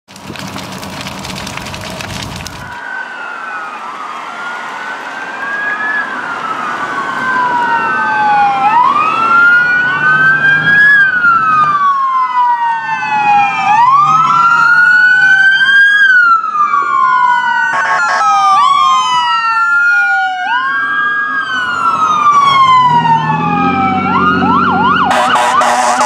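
Several emergency-vehicle wail sirens sounding together, each rising and falling in slow sweeps about every two to three seconds and overlapping out of step, getting louder as the vehicles approach. Near the end a fast yelp and a fire-truck air horn blast join in. It opens with a couple of seconds of broad rushing noise before the sirens start.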